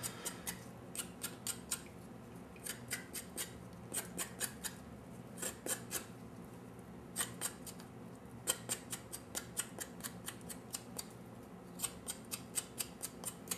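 Edge of a metal spoon scraping the skin off a piece of fresh ginger root: quick, sharp scraping strokes in short runs of several a second, with brief pauses between the runs.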